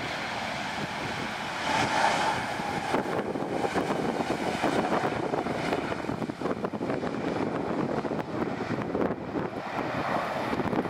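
Boeing 737-800's CFM56 jet engines on the landing rollout, a steady jet rush with a faint whine that grows louder about two seconds in. Wind buffets the microphone.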